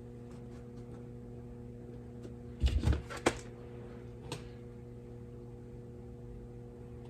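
A steady electrical hum, with a short burst of knocks and rustling near the middle and a couple of sharp clicks shortly after. These are handling noises from hands and tools working at a lawn tractor tire.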